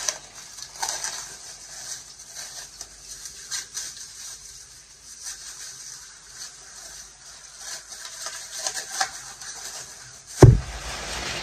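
Knife cutting cabbage by hand: faint scattered cuts and light clicks, then a single loud thump near the end.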